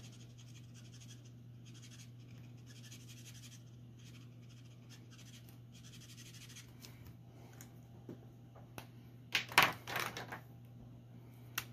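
Felt-tip nib of a Copic alcohol marker rubbing across paper in short repeated strokes, a faint scratchy sound over a steady low hum. About nine and a half seconds in come a few loud plastic clicks and clatter as one marker is put down and another picked up, then one sharp click near the end.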